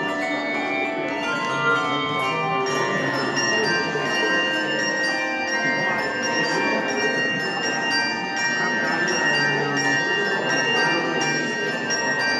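Handbell choir playing: many tuned handbells struck in turn, each note ringing on and overlapping the next.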